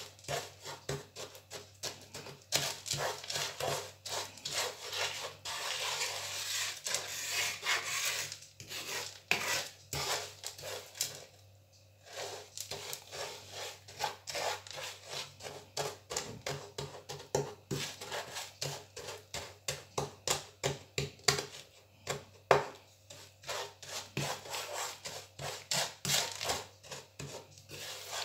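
Wooden spoon scraping and stirring lumpy sugar crystals around a non-stick frying pan as the sugar begins to melt. Rough strokes in quick succession, with a short pause about twelve seconds in.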